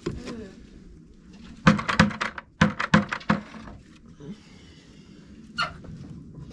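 Chickens clucking: a quick run of short, sharp clucks about two seconds in, and one more short call near the end.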